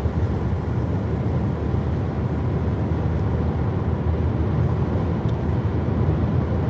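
Steady low road-and-engine rumble heard from inside a moving car's cabin.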